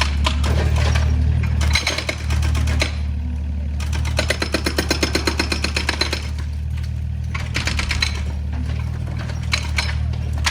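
Excavator's diesel engine running steadily, with rapid metallic clattering and rattling that comes and goes in spells of a few seconds as the machine works.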